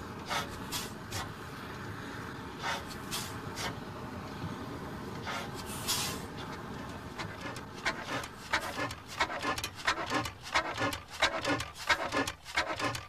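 1895 Hornsby-Akroyd hot-bulb paraffin engine being started by hand and turning slowly, a steady rush with scattered clicks, then irregular clicks and knocks coming much thicker from about two-thirds of the way in.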